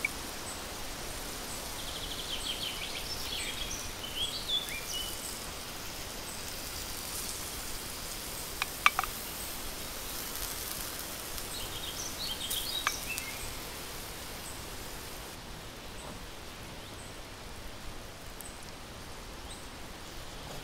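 Outdoor ambience: a steady hiss with birds chirping twice in the background, a faint high tick repeating about twice a second, and a few sharp clicks.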